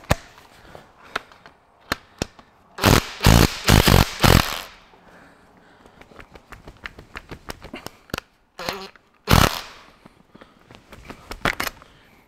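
Makita cordless impact gun hammering in short bursts, a cluster about three seconds in and another near nine seconds, loosening the nuts that hold down a rocker shaft assembly. Light clicks of the socket and tools come between the bursts.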